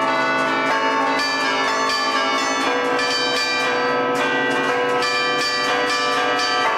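A set of twelve tower bells played from a hand keyboard in the festive allegrezza style, with a quick run of melodic strikes whose ringing tones overlap.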